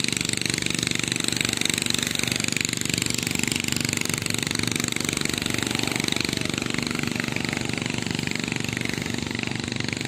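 An engine running steadily with a fast, even pulsing beat, over a hiss.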